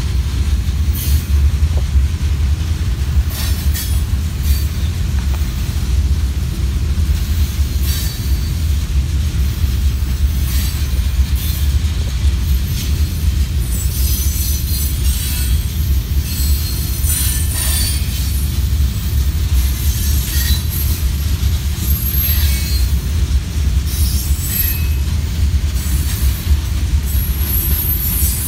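Freight train of tank cars rolling past, a steady low rumble from wheels on rail. Brief high-pitched wheel squeals and clicks come and go, more often in the second half.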